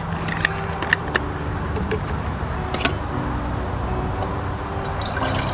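Steady low rumble of distant motorway traffic, with a few sharp clicks in the first three seconds. Near the end, water starts pouring from a vacuum flask into a small pot.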